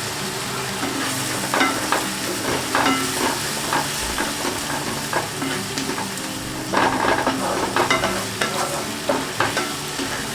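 Onion, ginger and garlic paste frying in oil in a pan with a steady sizzle, stirred with irregular strokes as it is sautéed down into the curry base (kosha).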